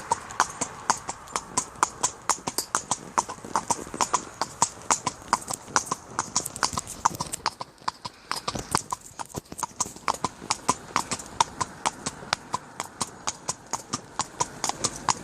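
A horse's hooves clopping steadily, about four strikes a second, heard from the saddle. The strikes thin out briefly just past halfway.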